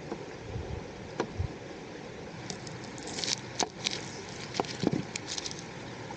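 Garlic and shallots frying in butter in a pan over a camp gas burner: a steady sizzling hiss with scattered crackles and pops, more frequent in the second half.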